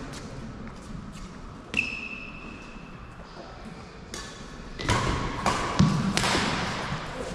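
Badminton rally: sharp racket hits on a shuttlecock and thuds of feet on the court. One crisp hit with a brief ringing ping about two seconds in, then a louder flurry of hits and thuds from about five seconds in, the loudest as a player jumps for an overhead smash.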